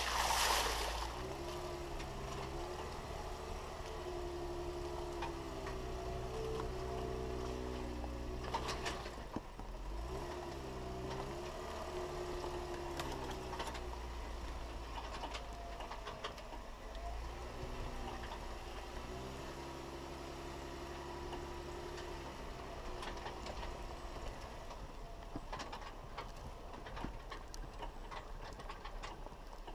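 Jeep Wrangler Rubicon creeping along a dirt trail: the engine's note rises and falls with the throttle in several stretches over a steady low rumble, with a few sharp knocks.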